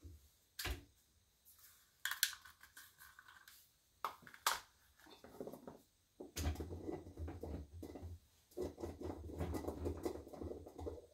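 Small handling noises: a few separate sharp clicks and taps, then from about six seconds in several seconds of continuous rubbing and rustling with a low rumble.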